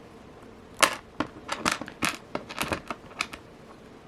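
Small metal jewelry findings (jump ring and toggle clasp) and pliers being handled, giving about a dozen sharp, irregular clicks over a couple of seconds.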